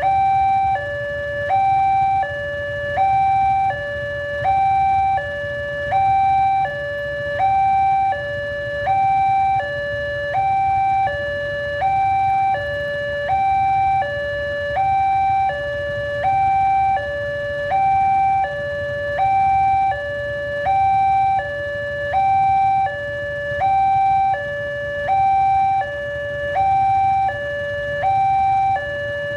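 Electronic warning signal of an Indonesian railway level crossing, two tones high and low alternating about every three-quarters of a second and repeating steadily, over a steady low rumble.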